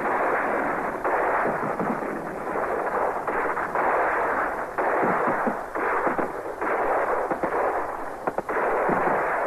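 Battle soundtrack of heavy, continuous gunfire: a dense din of rifle shots and blasts with brief lulls, dull and muffled as on an old film's sound track.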